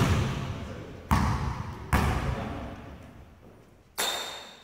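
Basketball bouncing on a hardwood gym floor: irregularly spaced dribbles, each ringing on with a long echo in the hall. Near the end comes a sharper, brighter impact.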